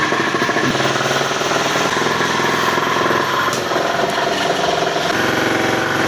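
Spin dryer of a semi-automatic washing machine running very loud, sounding like a generator. The cause is the spin motor's brake plate: its nuts have come undone and it turns with the pulley. The tone shifts slightly about five seconds in.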